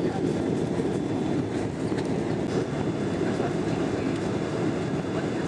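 Boeing 777-200 cabin noise during the landing roll: a steady low rumble of engines and tyres on the runway, with a few faint clicks.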